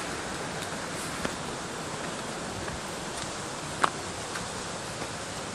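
Steady rushing outdoor noise of the bush, with a few light clicks and scuffs of footsteps on sandstone rock; the sharpest click comes about four seconds in.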